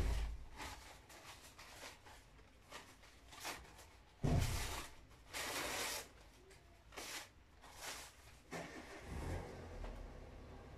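Stiff paper rustling and crinkling in a series of short bursts as sheets and scraps are handled and sorted. There is a dull thump at the start and another about four seconds in.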